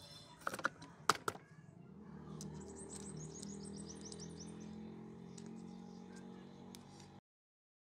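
A few sharp metal clicks as the motorcycle engine's magneto flywheel rotor is seated on the crankshaft and its nut is started by hand. Then a bird chirps rapidly and repeatedly over a steady low hum, and the sound cuts off abruptly near the end.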